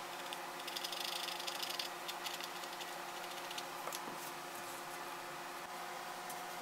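Hand sanding of a carved walnut tray: a short spell of rapid sandpaper scratching about a second in, followed by a few light taps. A steady machine hum runs underneath.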